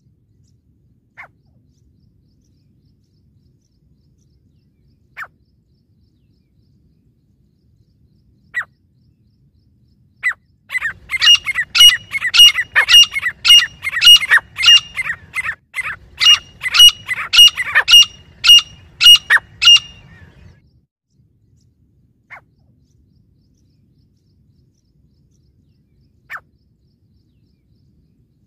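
Grey francolin calling: a few single sharp notes spaced seconds apart, then a loud rapid run of repeated ringing calls, about two a second for some ten seconds, then single notes again.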